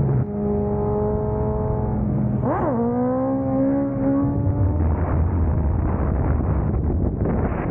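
Sportbike inline-four engine pulling at steady revs, then a sharp throttle blip up and straight back down about two and a half seconds in as the rider lifts the front wheel into a wheelie, after which the revs climb slowly. Heavy wind rush on the microphone runs under it and takes over in the second half.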